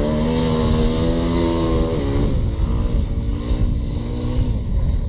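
Sidecar motorcycle outfit's engine running under throttle on a dirt track. Its pitch holds steady, drops and picks up again about two seconds in, then fades out near the end.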